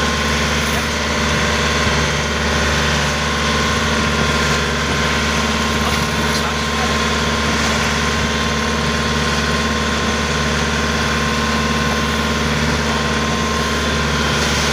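A tour boat's engine running steadily while under way, a constant hum with a steady high whine on top.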